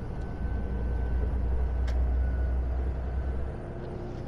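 Mercedes Actros lorry heard from inside the cab while driving: a steady low engine and road rumble that drops in level about three and a half seconds in, with a single sharp click about two seconds in.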